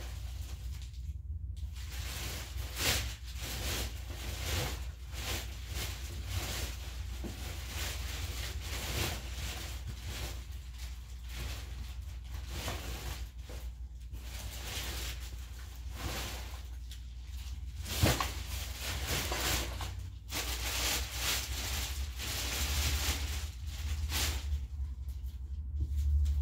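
Someone rummaging through stored belongings: irregular rustling, shuffling and handling noises with occasional light knocks, one sharper knock about eighteen seconds in, over a steady low hum.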